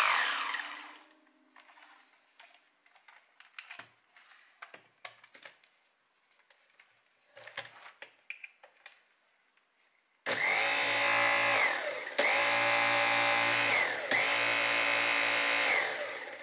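Dyson V8 motorhead brush-bar motor winding down, then light clicks and knocks of the plastic head being handled. About ten seconds in the motor starts again on a 16-volt supply and runs steadily, dipping briefly twice, before winding down at the end: the brush bar spins freely again.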